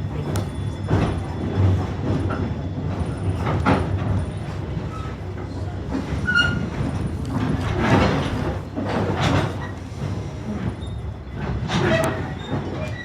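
Narrow-gauge passenger train rolling along the track, heard from a riding car: a steady rumble of wheels on rail with irregular clacks and knocks as the wheels cross rail joints.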